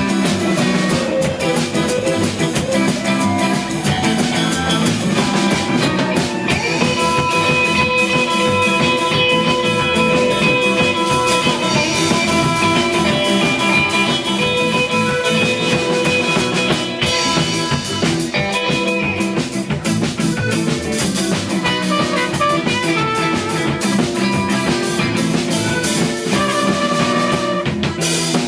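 Rock band playing an instrumental passage on drum kit and guitar, with long held guitar notes over busy drumming.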